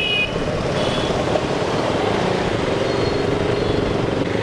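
Motor vehicle engine running steadily while moving along a road, with road and traffic noise. A pair of high steady tones, like a horn, cuts off just after the start.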